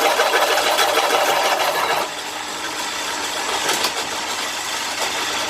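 Titan pillar drill boring an 18 mm hole through 4 mm mild steel: the motor and belt drive run under load while the bit grinds and chatters through the metal. The noise is loudest for the first two seconds, then eases a little.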